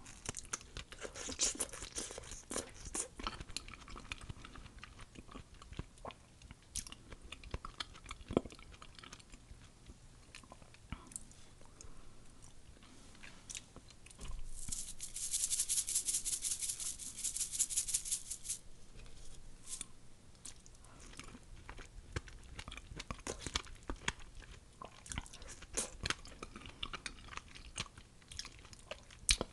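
Close-miked eating sounds of a person biting and chewing soft, juicy mango slices: many small wet mouth clicks and chews. About halfway through comes a louder hissy stretch of about four seconds.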